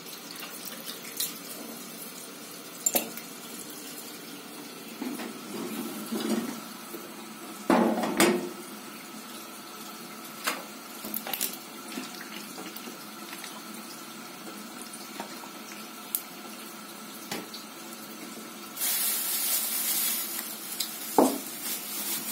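Kitchen worktop handling: scattered knocks and clinks of glass jars and dishes, with a heavier thump about eight seconds in. Near the end, a kitchen tap runs for about two seconds.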